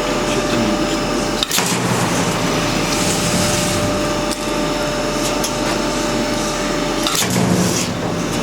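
Resistance seam-welding machine running as it welds a stainless steel sink into a counter top: a steady mechanical noise with a faint held tone and low hum, and two sharp clicks, about a second and a half in and again near the end.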